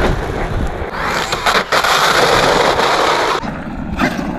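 Traxxas Maxx V2 RC monster truck on 6S driving over a rough, gritty asphalt road: a loud, continuous rushing of tyres on grit together with the drivetrain. It drops off noticeably about three and a half seconds in.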